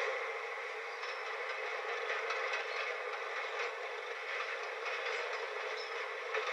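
A train running past on the rails: a steady wheel-and-rail noise with a few faint clicks.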